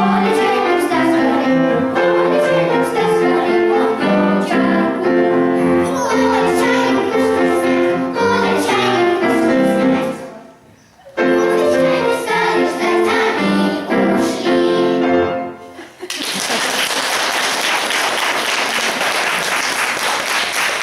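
A group of young children sings with piano accompaniment, breaking off briefly about ten seconds in. The song ends about sixteen seconds in and the audience starts applauding.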